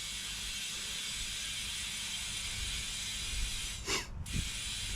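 Compressed air hissing steadily into a car tyre from an inflator line as it is pumped back up to about 36 psi, with a brief break in the hiss about four seconds in.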